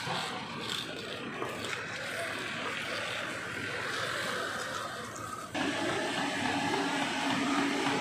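Outdoor street noise with motorbike traffic and a few sharp knocks. About five and a half seconds in it cuts abruptly to a louder, steady droning hum.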